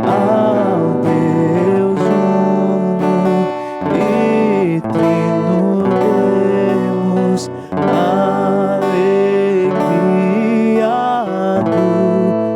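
Slow devotional worship music: strummed acoustic guitar accompanying a sung melody, played for Eucharistic benediction.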